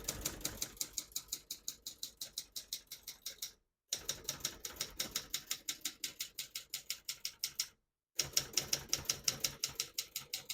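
1969 Adler J5 manual portable typewriter being typed on quickly: a fast, even clatter of typebars striking the platen, about eight keystrokes a second, in three runs with short breaks.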